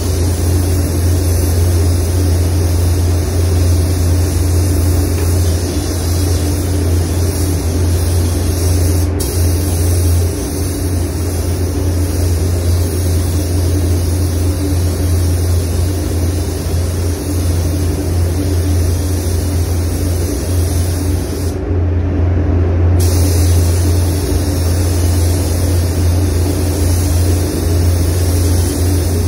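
Paint spray gun hissing steadily as compressed air atomises paint onto a bumper, over a steady low hum. The hiss cuts out for about a second about three-quarters of the way through as the trigger is released, then resumes.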